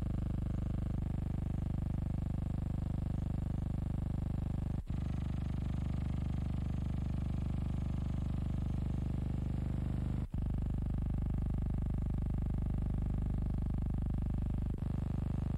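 Steady low hum with a stack of even overtones, unchanging in pitch, broken by three very brief dropouts a few seconds apart; no sound of the boats themselves.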